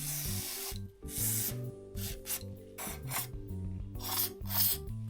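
Wool scrubbing corroded metal on a bike part by hand, in repeated short rasping strokes. Background music plays underneath.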